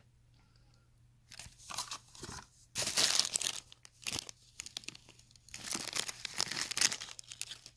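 A packaging wrapper crinkling and tearing as it is opened by hand, in irregular rustling bursts that start about a second in.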